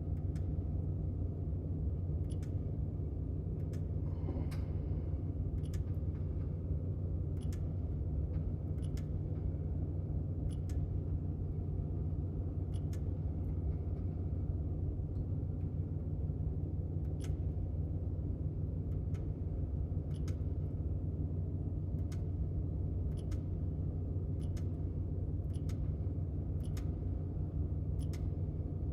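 Steady low electrical hum of shop equipment, with faint clicks scattered through it.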